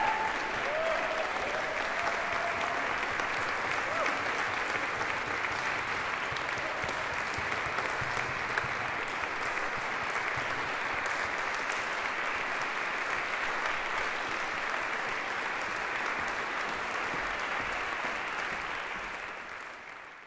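Audience applauding steadily, a dense even clapping that fades out over the last couple of seconds.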